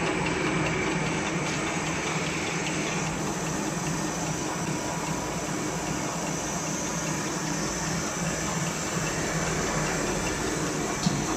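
Napkin paper folding machine running steadily: a continuous mechanical hum and whir, with one sharp click near the end.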